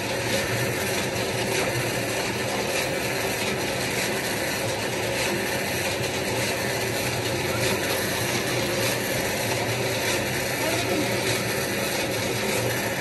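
A motor-driven water pump running steadily: an even hum with several low steady tones that does not change.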